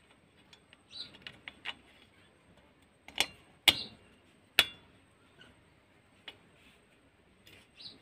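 Sharp metallic clicks and taps from hand work on metal parts at the exhaust port of a TVS Super XL moped engine: a few faint ticks first, then three louder clicks close together a little past the middle, and a last one later on.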